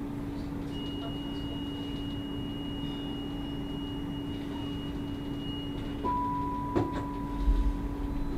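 Stadler Variobahn tram standing at a stop, heard from the driver's cab: a steady electrical hum. Over it a high electronic tone holds for about five seconds, then gives way to a lower tone for about two seconds, with a click near the end.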